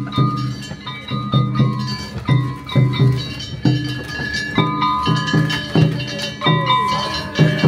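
Gion festival float hayashi: small hand gongs (kane) struck to a brisk, steady beat over taiko drum strokes, each strike ringing with a bright metallic tone.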